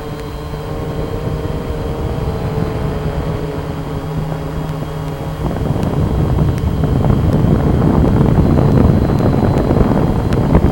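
Blade Chroma quadcopter's brushless motors and propellers humming steadily in flight, the pitch wavering slightly. About halfway through, a louder rushing noise builds up over the hum.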